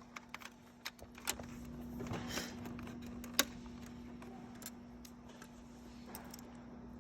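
Scattered small clicks and rattles of plastic wiring connectors being pushed back into place behind a control panel, with one sharp snap about three and a half seconds in, over a faint steady hum.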